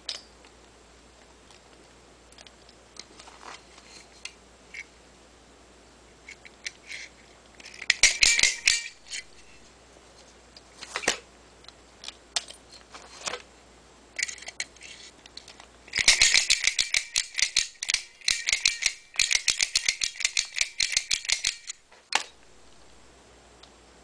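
Pick gun snapping against the pin tumblers of a cheap Kwikset brass knob lock held under a tension wrench. A few light scattered clicks, then a short run of rapid metallic clicking about a third of the way through and a longer run of several seconds of rapid clicking later on.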